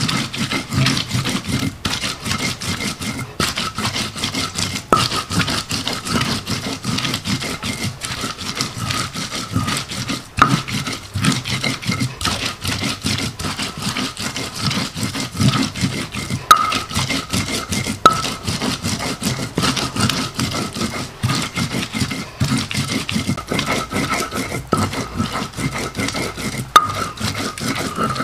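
Spices being ground by hand on a grinding stone: stone rubbing and scraping against stone in quick, steady, repeated strokes.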